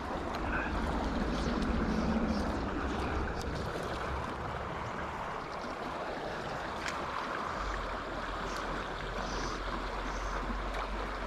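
Steady rushing of flowing stream water, with a low rumble underneath.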